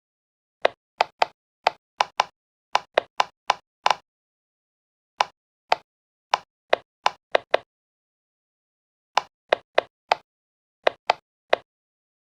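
Silicone pop-it fidget toy bubbles being pressed in, each giving a short sharp pop, about 25 in three quick runs with pauses of a second or more between runs.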